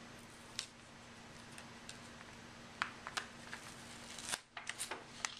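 Masking tape being picked and peeled off the edge of a laptop LCD panel: scattered light clicks and crinkles, with a short rasping pull about four seconds in.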